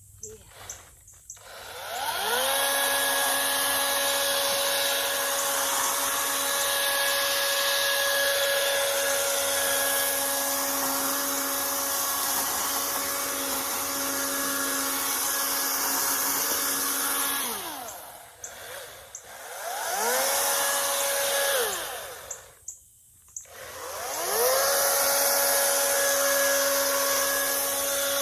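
Toro electric chainsaw's motor spinning up to a steady high whine. It runs for about fifteen seconds, winds down, gives a short burst of about two seconds, then spins up again near the end and keeps running.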